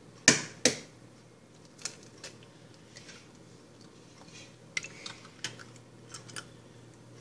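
Two sharp knocks in the first second, an egg being cracked against the rim of a pan, followed by scattered faint clicks and ticks of eggshell being handled.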